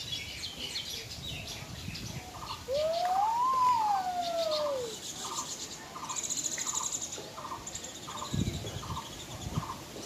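Birds chirping and chattering in a high register. About three seconds in, a loud, clear whistle rises and then falls over about two seconds, and a short lower note repeats about twice a second through the rest.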